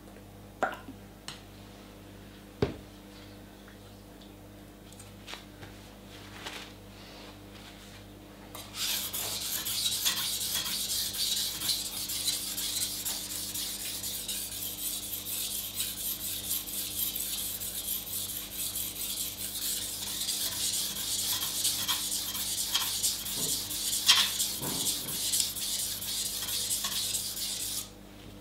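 Steel kitchen knife blade stroked back and forth over a wet 1000-grit water stone: a continuous high, scratchy scraping that starts about nine seconds in and stops just before the end. A few light clicks come before it.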